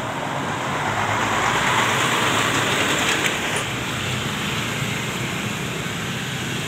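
Diesel box truck driving past close by, its engine and tyres loudest about two seconds in and fading as it moves away, then motorcycles passing.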